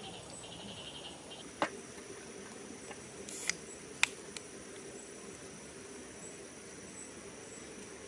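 An aluminium drink can snapped open by its pull tab about four seconds in, the click coming just after a short fizz. A single sharp knock about a second and a half in, over steady insect chirring.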